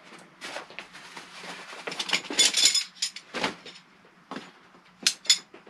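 Metal poles of a folding camp table frame clinking and knocking against each other as it is pulled from its fabric carry bag and unfolded, with nylon rustling between the clinks. A cluster of ringing clinks comes about two seconds in, then a single sharp knock, then a few more clicks near the end.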